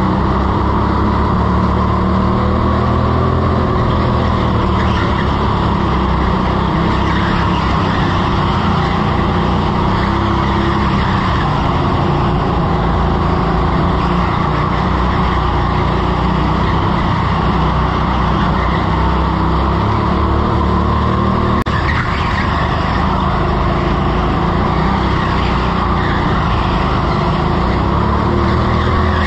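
Go-kart running hard at speed, heard from the driver's seat, its motor loud and steady with tyres scrubbing on the smooth indoor track through the corners.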